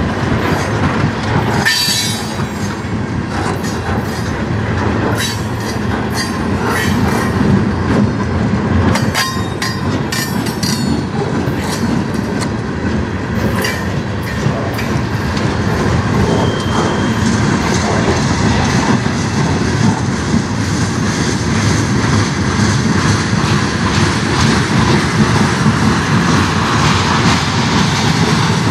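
Freight cars of a manifest train rolling past at close range: a steady loud rumble of steel wheels on rail. Over the first half it is crossed by a quick run of sharp clicks and clacks from the wheels.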